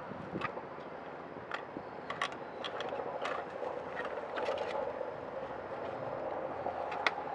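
Irregular clicks and knocks of wooden roof boards and battens being levered up and shifted over old straw thatch, a dozen or so sharp knocks spread unevenly, the loudest one near the end. A steady hum runs underneath.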